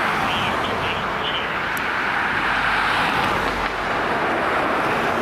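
Fire ladder truck's engine running as the truck pulls out onto the road, a steady loud noise with no clear siren wail.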